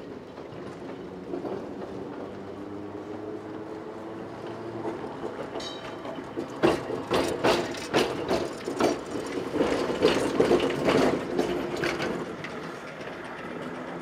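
Vintage electric tram running past close by on curving track: a steady motor hum, then a run of loud clacks as its wheels cross rail joints and points, with a brief high wheel squeal just before the clacks begin.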